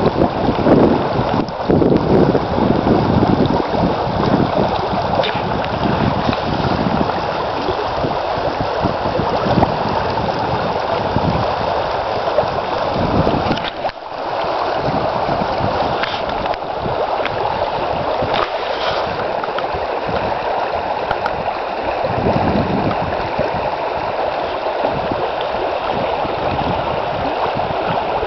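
Shallow mountain creek rushing over a rocky, pebbly bed: a steady running-water sound, with wind buffeting the microphone in the first few seconds.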